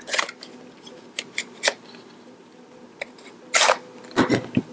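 Handling of a Polaroid SX-70 camera: a series of small sharp clicks and knocks from its plastic and metal body and film door, with a louder short scrape about three and a half seconds in and two dull knocks near the end.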